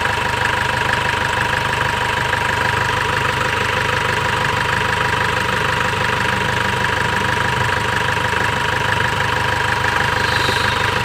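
Mahindra Xylo engine idling steadily, heard up close in the engine bay, with a constant high-pitched whine over the running.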